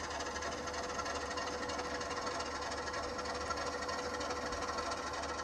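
Drive motor of a Walthers 90-foot HO-scale motorised turntable running steadily with an even hum as the bridge rotates.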